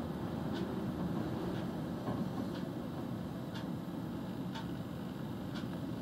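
Steady low rumble of road traffic and idling car engines, with a light tick repeating about once a second.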